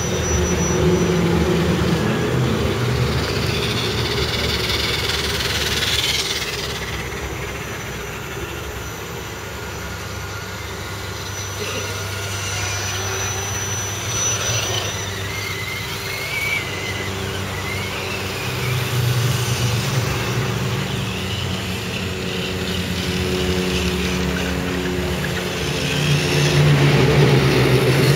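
Radio-controlled scale crawler trucks driving past one after another, their motors and drivetrains running steadily, with the pitch shifting every few seconds as each truck passes.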